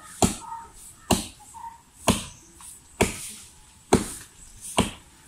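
A blade chopping by hand into a coconut palm trunk: six sharp strokes about one a second, each with a short ringing tail.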